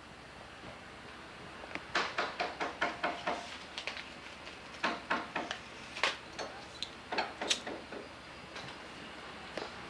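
A rapid series of sharp knocks and clatters, about six or seven a second, in two spells: one starting about two seconds in and another from about five to eight seconds in.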